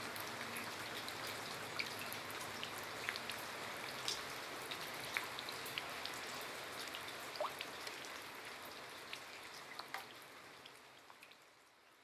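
Steady rain falling on leaves, with many individual drops ticking close by. The rain fades out over the last couple of seconds.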